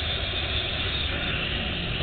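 Steady rush of wind buffeting the microphone, with the zipline trolley's pulleys running along the steel cable at speed.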